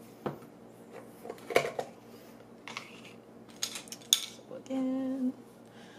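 Clicks and clatters of a metal baking powder can being opened and plastic measuring spoons being handled: about five sharp clicks over the first four seconds, the loudest about one and a half seconds in. A brief steady hum follows near the end.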